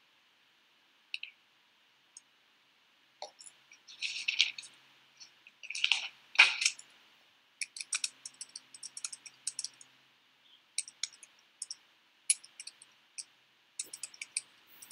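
Computer keyboard typing and clicking, in quick irregular taps, with a few louder clatters about four to seven seconds in.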